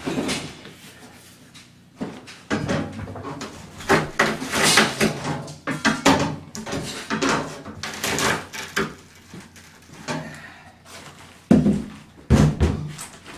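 Heavy bathtub being pried and shifted in its alcove: repeated scraping and knocking, then two heavy thumps near the end as it comes loose.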